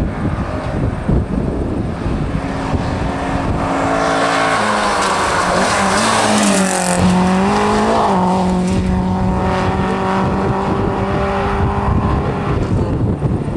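1975 Holden Gemini rally car at full throttle up a hill stage: its engine note grows louder as it approaches, dips in pitch as it passes close about six to seven seconds in, then holds a steady note as it pulls away and fades near the end. Wind rumbles on the microphone throughout.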